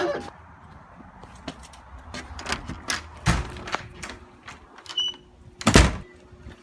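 Scattered clicks and knocks, with a louder thump near the end.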